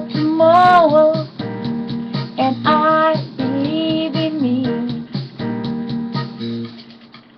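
Backing music with steady chords, with a voice singing a few long, wavering notes over it. The music fades out near the end.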